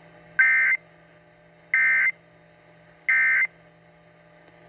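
Emergency Alert System SAME end-of-message data bursts: three short bursts of warbling two-tone digital data, about a second and a half apart, marking the end of the alert.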